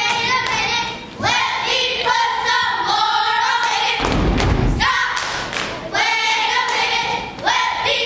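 A group of girls singing in unison in short phrases, with heavy stomps on the wooden stage floor between the lines.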